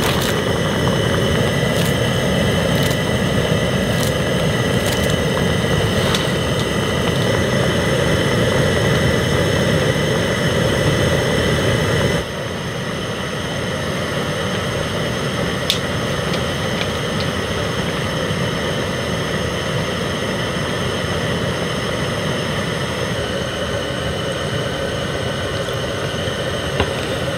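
Portable gas burner running under a pot of fish soup at a full boil: a steady roar with bubbling. About twelve seconds in it cuts to a quieter steady background hum, with one sharp click a few seconds later.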